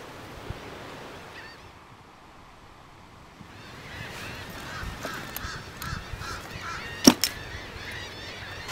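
Seabirds on the beach calling over and over, the calls starting about four seconds in. About seven seconds in comes one sharp thud, a backpack dropped onto the concrete walkway, the loudest sound here.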